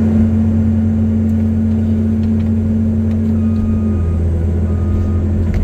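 CAT 320C excavator's diesel engine running steadily, a loud low drone. About four seconds in, a higher steady tone within it drops away.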